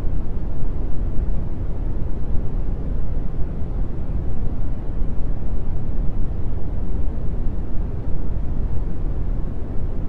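Steady brown noise: an even, deep rumbling hiss with most of its energy in the low end, unchanging throughout.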